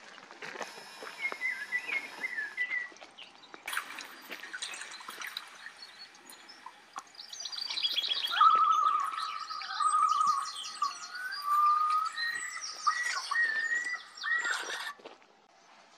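Wild birds singing and calling: several overlapping chirps, trills and warbled phrases, with a long wavering note held for about four seconds around the middle.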